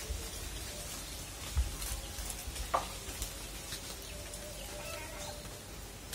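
White hens clucking softly, with one short sharp call about three seconds in and a few low thumps early on.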